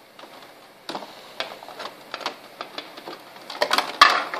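Hard plastic Beyblade stadium parts clicking and knocking as they are handled and pressed together during assembly, with a quick cluster of louder clacks near the end.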